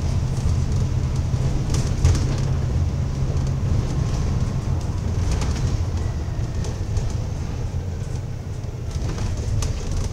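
Double-decker bus running along the road, heard inside the upper deck: a steady low engine drone over road noise, with a few light rattles and clicks from the body. The low drone eases about four seconds in.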